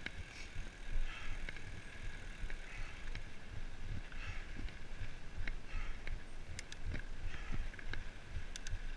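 Mountain bike rolling along a dirt and gravel trail: tyre noise on the ground with sharp clicks and rattles from the bike over bumps, under a steady rumble of wind on the microphone.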